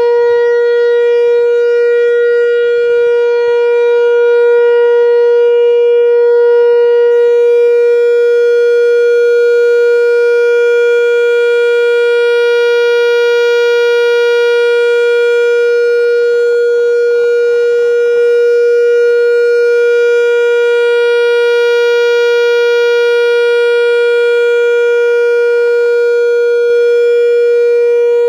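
Whelen 4004 electronic outdoor warning siren sounding its test: one loud, steady tone held at a constant pitch, without rising or falling.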